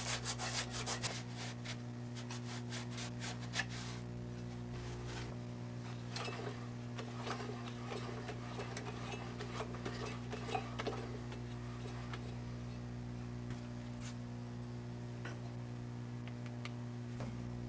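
Quick back-and-forth rubbing strokes, about six a second, die away in the first second or two. Scattered light scraping and rubbing follows, over a steady low hum.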